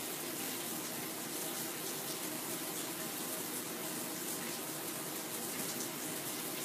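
A steady, even hiss with no distinct events, like a running tap or fan.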